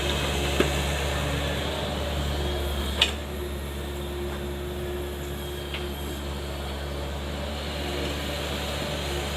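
Mini excavator's diesel engine running steadily, with a sharp knock about three seconds in.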